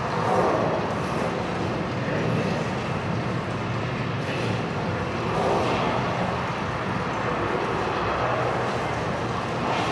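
Deep, steady rumbling and whooshing ambient soundscape of an immersive media-art installation, with a constant low hum beneath. It swells briefly about half a second in and again around five and a half seconds.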